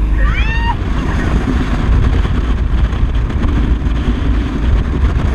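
Speedboat running fast over open water: a steady, loud rush of engine, wind and water. In the first second a passenger lets out a brief high-pitched shriek.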